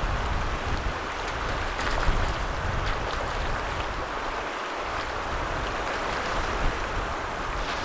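Shallow river flowing over a cobble bed, a steady rushing, with wind buffeting the microphone in low rumbles.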